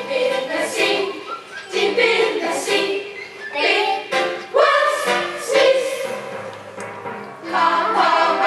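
A child singing a song in phrases, with music accompanying.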